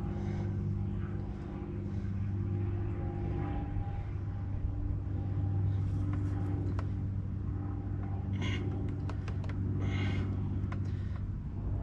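A steady low mechanical hum runs throughout. Over it come light handling noises: a few short rustles and a cluster of sharp clicks about two-thirds of the way in.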